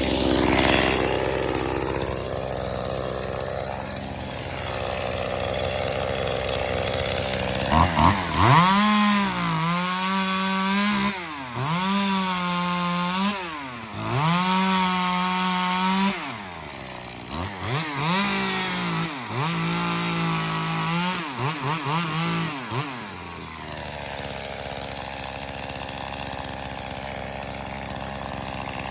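Echo CS-2511T small two-stroke top-handle chainsaw idling, then revving high in several bursts for about fifteen seconds, its pitch sagging and recovering within each burst as it works through wood, before dropping back to idle.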